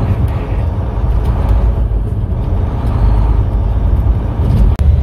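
Semi-truck driving on the highway: a steady, loud low rumble of engine and road noise, with a momentary dropout just before the end.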